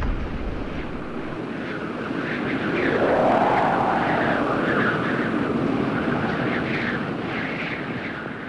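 A steady rushing, rumbling noise, the dying tail of a loud boom at the start, that swells to a peak about three seconds in and then slowly fades out.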